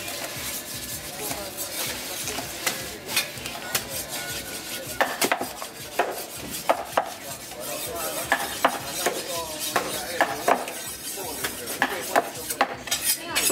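A wooden club knocking on the back of a large knife, driving the blade through mahi-mahi into a wooden chopping block as the loin is cut into steaks: a series of sharp, irregular knocks, about one a second or faster.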